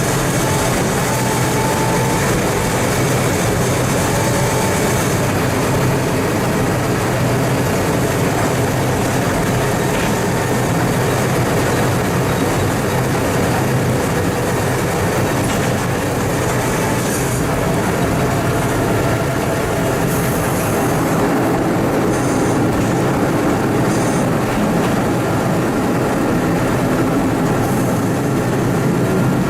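TMC200 snow-removal motor car travelling along the track, its engine running steadily under the noise of its wheels on the rails.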